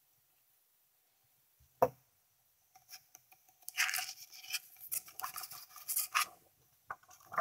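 Handling noise at a record player: a single knock about two seconds in, then several seconds of scraping and rubbing as a thin plastic flexi disc is handled and lifted off the turntable platter, with a couple of clicks near the end.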